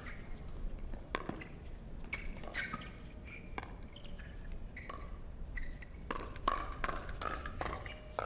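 Pickleball paddles hitting the hard plastic ball in a rally: a string of sharp pops, each with a short ring, about one a second at first and then faster, about two or three a second, near the end.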